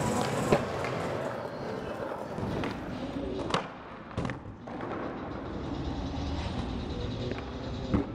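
Skateboard wheels rolling steadily over a concrete skatepark floor, broken by sharp wooden clacks of the board: one about half a second in, a pop at about three and a half seconds and a landing just after four, and another near the end.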